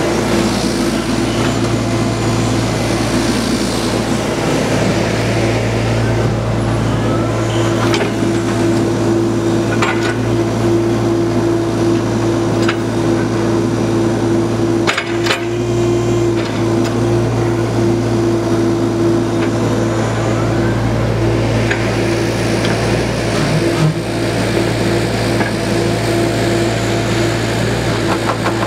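Mini excavator's Kubota diesel engine running steadily while the hydraulics work the boom and arm, with a few sharp knocks from the machine, the loudest about halfway through.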